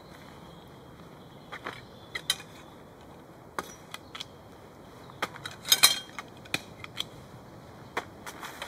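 Metal tent-frame poles being handled and fitted together: scattered clicks and clinks, with a louder cluster of knocks about six seconds in.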